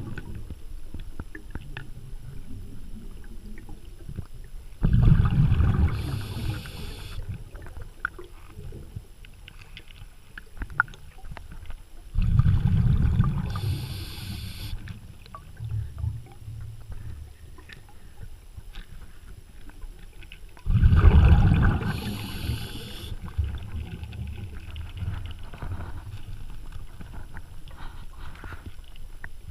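Water splashing and sloshing around a boat, swelling in three louder surges several seconds apart, with small crackles in between.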